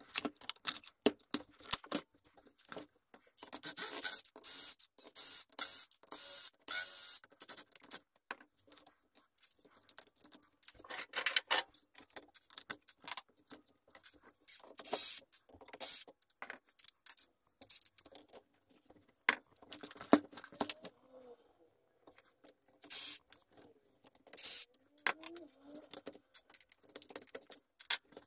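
Irregular clicks, taps and scrapes of a hand tool and plastic and metal parts as a Traxxas X-Maxx RC truck's chassis is taken apart, with a few denser bouts of scraping and rattling.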